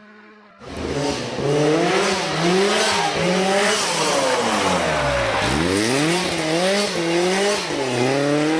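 Rally car engine driven hard, its pitch climbing and dropping again and again through gear changes and lifts, with one deep dip and climb back up midway. It starts suddenly about half a second in.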